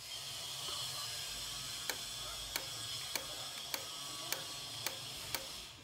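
Seven sharp mechanical clicks, evenly spaced about every 0.6 seconds, starting about two seconds in, over a steady hiss.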